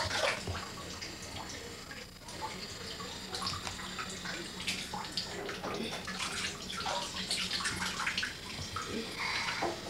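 Water splashing and trickling, with a faint steady low hum underneath.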